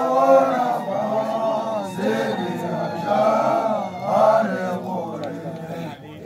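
A group of young men singing a chant together in unison, in several drawn-out phrases that swell and fall away.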